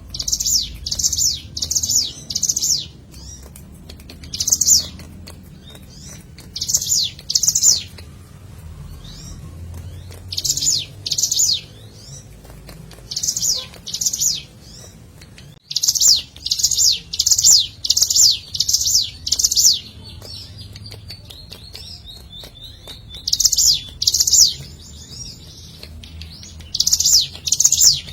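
Ciblek gunung (a prinia) singing: loud, sharp, falling high notes repeated in quick bursts of two to six, with short pauses between the bursts.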